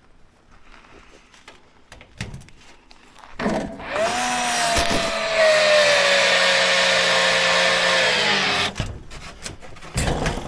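Handheld electric power tool running for about five seconds, a steady whine that sags slowly in pitch as it works under load, then cuts off. A few faint knocks come before it.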